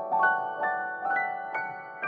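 Background piano music: notes struck about two a second, each fading away, with the melody climbing step by step.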